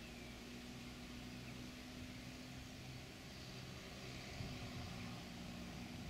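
John Deere 7810's six-cylinder diesel engine running steadily and faintly while the tractor lifts and turns over its five-furrow reversible plough at the headland.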